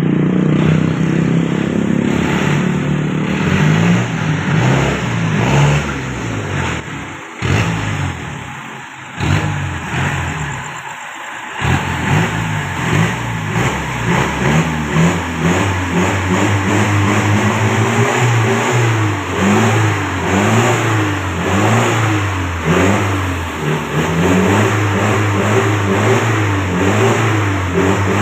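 Toyota 14B four-cylinder diesel engine in a Jeep CJ7, running steadily at first. From about twelve seconds in it is revved up and down over and over, roughly once a second, as its power through the transmission is tested.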